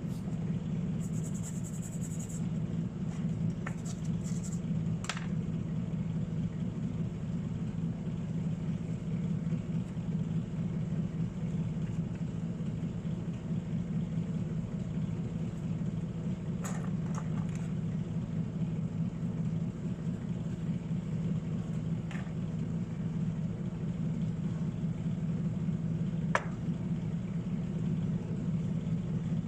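Steady low hum from a small motor or fan, with a few light clicks and taps at scattered moments.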